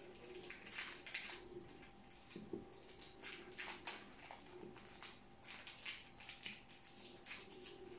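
Plastic cling film crinkling and adhesive tape being pulled and wound around a cling-film-wrapped chicken roulade to seal it. It comes as a dozen or so short, irregular crinkling bursts.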